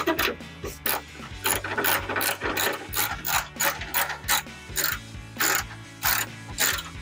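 Hand socket ratchet clicking as it is swung back and forth to run a bolt in, about two to three strokes a second with a short pause past the middle.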